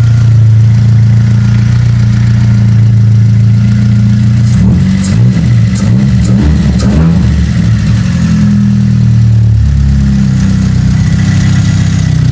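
Chevrolet Astra's 1.8-litre four-cylinder engine running steadily, its pitch wavering and unsettled for a couple of seconds in the middle before settling again.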